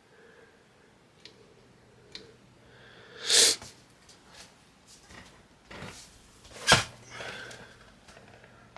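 Computer parts being handled during a PC build: scattered light clicks and rustles, a louder brief scrape about three and a half seconds in, and a sharp click near the end.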